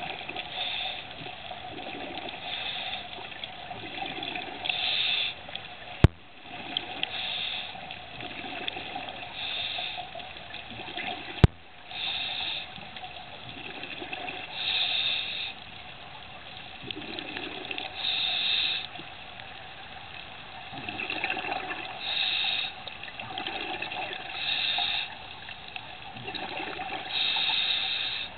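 Scuba diver breathing through a regulator underwater: a regular cycle every two to three seconds of an inhaled hiss and exhaled bubbles. Two sharp clicks come about six and eleven seconds in.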